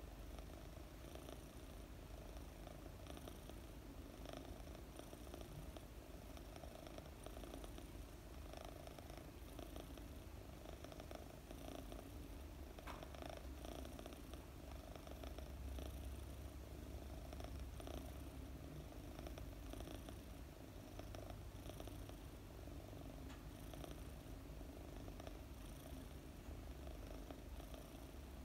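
A British Longhair kitten purring softly and steadily while being stroked as it sleeps.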